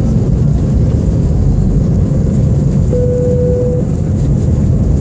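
Airliner cabin noise during the take-off climb of an Airbus A319: a loud, steady, deep rumble of the jet engines at take-off power, with rushing air. A brief steady tone sounds once, about three seconds in.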